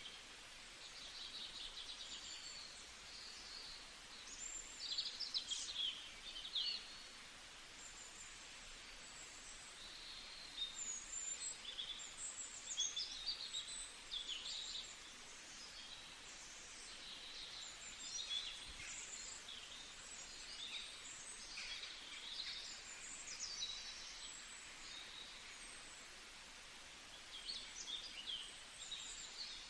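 Several songbirds chirping and singing, with short high calls and quick trills overlapping in irregular bursts over a steady faint hiss.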